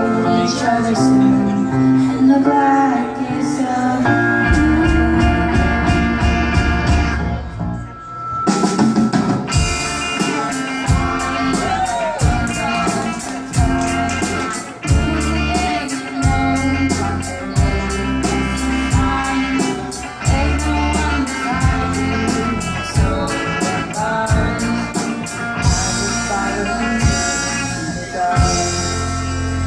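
Live rock band of electric guitars, keyboard and drum kit playing through a PA, with sung vocals over it. The band drops away briefly about eight seconds in, then comes back with the drums hitting a steady beat.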